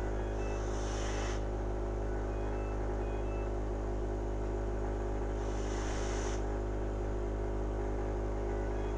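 Cough assist machine running with a steady hum, with two hisses of air about a second long, one near the start and one about five and a half seconds in.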